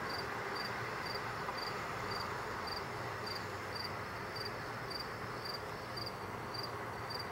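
A cricket chirping steadily in an even rhythm, about two short high chirps a second, over a steady hiss.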